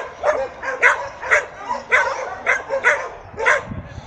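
Dog barking over and over, short sharp barks about two a second.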